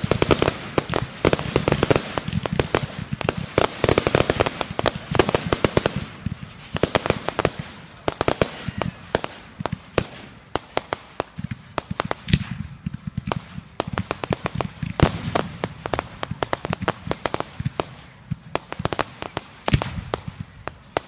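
Fireworks going off: a dense, continuous barrage of sharp bangs and crackling reports over a low rumble, thickest in the first few seconds and again near the end.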